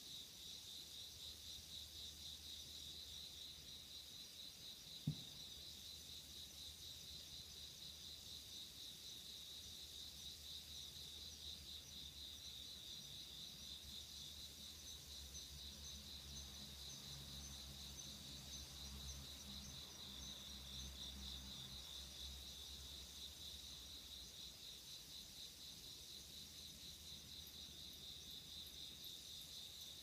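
Faint, steady chorus of autumn crickets chirping at night in a high, rapidly pulsing trill, with a single sharp click about five seconds in.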